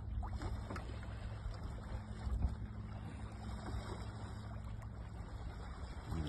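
A boat motor running steadily, a low even hum.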